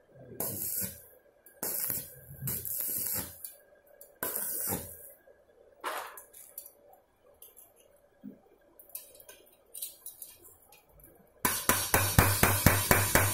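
Crackling stick-welding arc from a mini inverter arc welder, struck in a run of short, uneven bursts as the electrode is touched to a steel tube. Near the end a loud, fast, even tapping starts, about five strokes a second.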